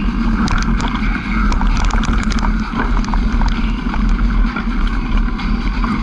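Motor vehicle engine running steadily while driving along a rough dirt track, with wind buffeting the microphone. A scatter of small clicks and knocks comes in the first half.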